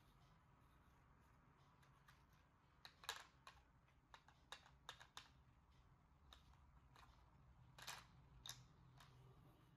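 Faint, irregular clicks and taps of small toy kitchen pieces being handled and set down, about a dozen in all, loudest about three seconds in and again near eight seconds.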